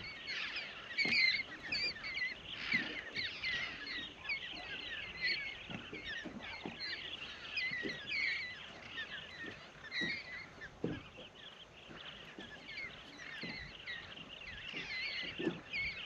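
A large flock of parrots squawking together at their evening roost: many short shrill calls overlap without a break.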